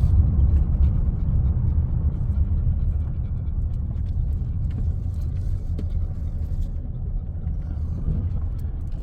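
Steady low rumble of a van driving, engine and tyre noise heard from inside the cabin, easing off a little a few seconds in.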